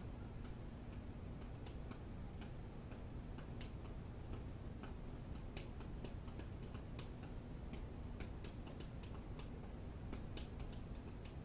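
Faint steady low hum with light, irregularly spaced ticking clicks throughout.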